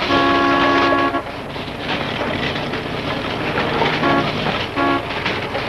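Car horn honking: one long honk of about a second, then two short honks near the end. Under it runs the steady sound of a car under way.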